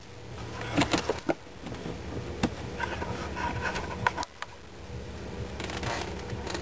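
A cat's jingle-bell ball jingling as a kitten bats the toys hung in a cardboard play box, with scattered sharp taps and knocks.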